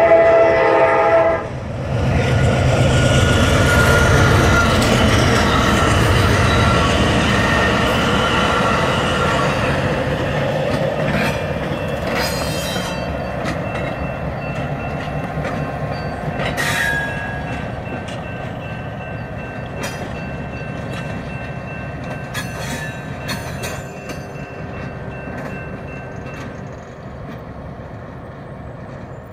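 A train horn sounds one chord for about a second and a half. Then a Richmond Pacific Railroad diesel switcher locomotive and its caboose rumble past with clanks and a short squeal midway, fading steadily as they move away.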